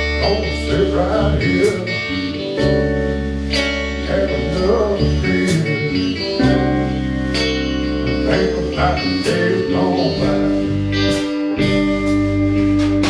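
Live country band playing: pedal steel guitar with sliding, held notes over electric guitar, electric bass and drums, with a man singing.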